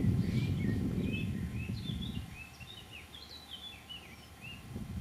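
Small birds chirping and twittering in quick, varied notes. Under them a low rumbling noise is strong for the first two seconds and then fades, with a brief low bump near the end.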